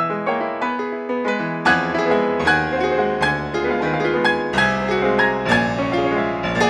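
Solo piano piece played on a Casio Celviano digital piano: a quick, dense run of notes over a moving bass line, getting louder and fuller about two seconds in.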